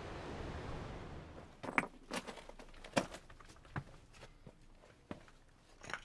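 Steady rushing wind and surf noise that stops about a second and a half in, then about seven footsteps on a hard stone floor, each a short sharp knock, spaced roughly a second apart.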